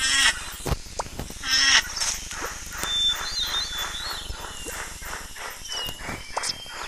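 Cartoon animal sound effects: two short, harsh animal calls in the first two seconds, then a steady patter of soft knocks at about four a second, with high bird chirps over it.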